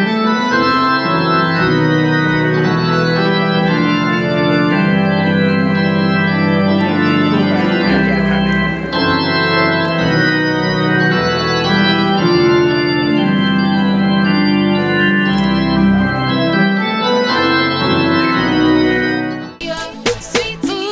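Organ music playing full, held chords that change every second or so, breaking off shortly before the end.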